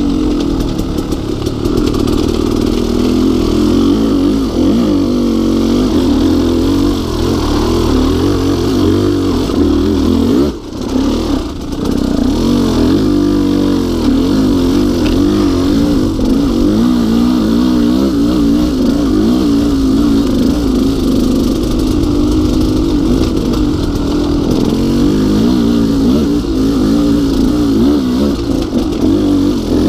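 2016 KTM 200 XC-W dirt bike's two-stroke single-cylinder engine running under way, its pitch rising and falling with the throttle. About ten seconds in it drops off briefly, then picks up again.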